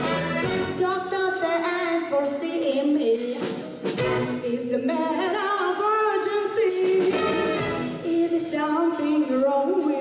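Live female vocalist singing into a microphone, accompanied by a string ensemble of mandolins and violins.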